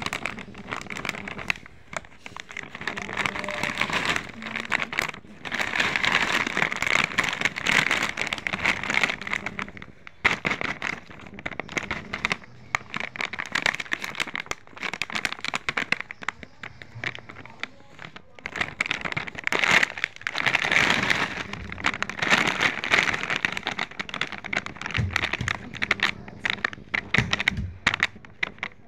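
Foil potato chip packets crinkling and crackling as they are handled and turned over by hand, an irregular rustle that swells and eases in stretches.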